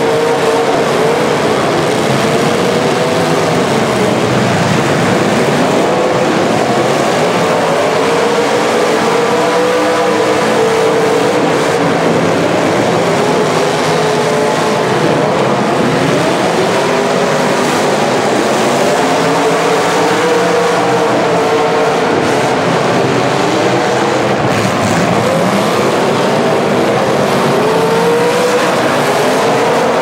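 Demolition derby car engines revving hard, the pitch climbing and falling again and again as the cars spin and push in the dirt.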